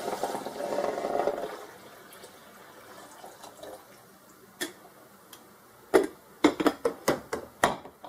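Water poured from a glass coffee carafe into the reservoir of a drip coffee maker for about two seconds, then a lull. Near the end comes a quick run of sharp clicks and knocks as the glass carafe is handled and set back onto the warming plate.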